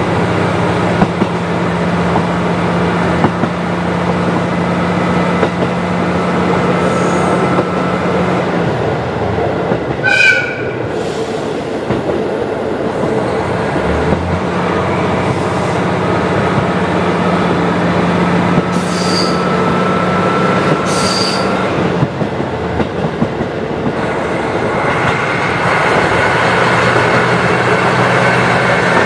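KiHa 40 diesel railcar running on the line: a steady diesel engine drone over wheel-and-rail rumble. The engine note drops away about eight seconds in and picks up again a few seconds later, and a brief high-pitched squeal sounds about ten seconds in.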